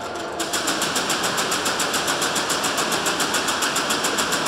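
Rapid, even mechanical clatter of about nine beats a second, growing louder about half a second in.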